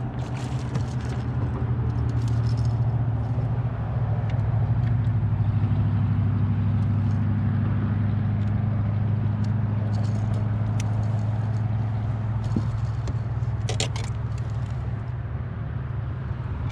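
Steady low hum of a boat motor running, swelling slightly for a few seconds in the middle. Scattered clicks and rattles of fishing tackle being handled come through near the start and again after about ten seconds.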